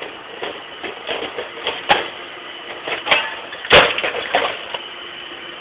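Hard blows smashing an object lying in the grass: sharp whacks about two, three and nearly four seconds in, the last the loudest, with lighter knocks between.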